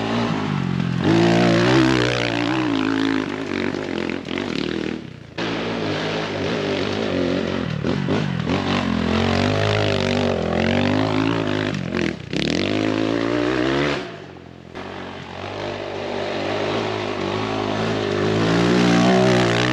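X Pro Templar 250's air-cooled single-cylinder four-stroke engine under way on a dirt trail, revving up and down with the throttle. The engine note drops off sharply twice, about a quarter of the way through and again for about a second past the middle.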